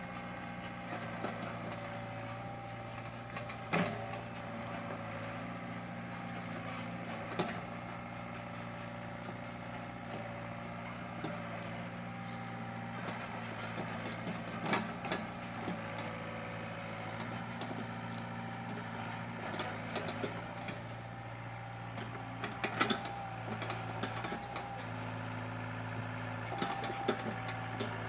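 Sumitomo mini excavator working at a eucalyptus stump: its diesel engine runs steadily under a higher whine that shifts in pitch and comes and goes. Now and then there is a sharp knock, four of them louder than the rest.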